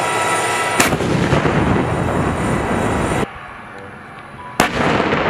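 Tank cannon fire sound effect: two sharp blasts, about a second in and again near the end, each trailed by a long rumble.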